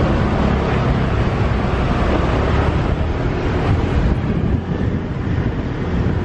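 Steady rush of a motorbike taxi ride through street traffic: the small motorbike engine runs under wind and road noise. The noise eases slightly about four and a half seconds in.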